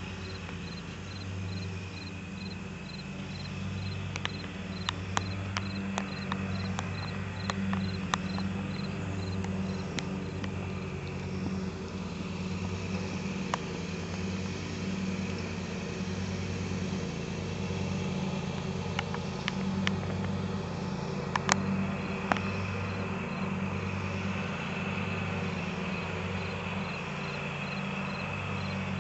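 Crickets chirping in an even, rapid pulse over other insects, with a steady, wavering low hum underneath. A few sharp clicks are scattered through, the loudest about three quarters of the way in.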